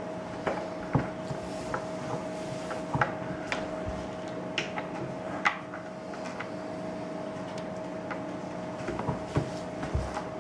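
Scattered light knocks and clicks of things being handled on a tabletop, irregular and a few seconds apart, over a steady electrical hum.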